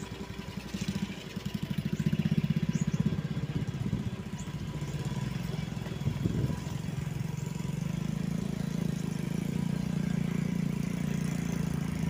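A vehicle engine running at low speed on a rough dirt track, a steady, rapidly pulsing low rumble that briefly rises and falls in pitch about six seconds in.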